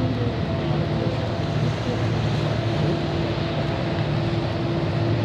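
ShinMaywa US-2 amphibian flying past on its four turboprop engines: a steady drone, with held tones over a low hum and an even rushing haze.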